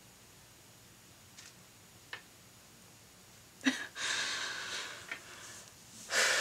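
A woman composing herself after tearing up: a few seconds of near silence, then a short breathy laugh and a long exhale about four seconds in, and another hard breath out near the end.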